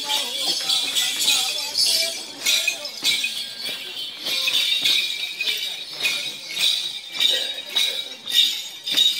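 Sole circle dance: metallic jingling in a steady beat of about two strokes a second, over the voices of the dancing crowd.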